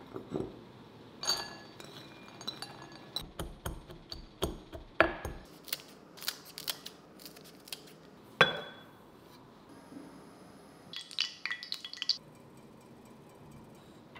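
Kitchen scissors snipping fresh chilies into a ceramic bowl, with sharp clinks of ceramic dishes being handled. A quick cluster of ringing clinks comes near the end.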